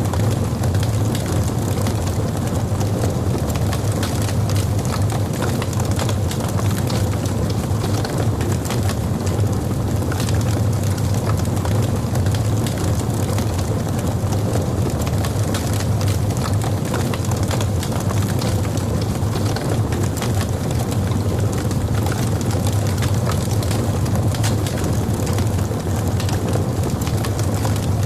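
Log fire in a fireplace burning steadily: a low rumble of flames with frequent small crackles and pops.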